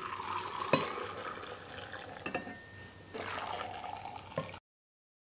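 Salt-water brine being poured into a glass jar of olives: a steady splashing fill with a few light clinks. The sound cuts off suddenly near the end.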